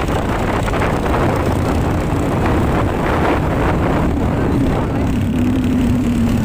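Motorcycle engine running under way, with wind buffeting the microphone; a steady engine tone stands out over the last second or so.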